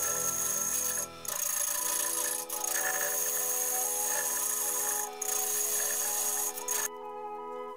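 A gouge cutting into a segmented ash vase spinning on a wood lathe: a steady hissing scrape of the cut that lets up briefly a few times and stops sharply near the end. Background music runs underneath.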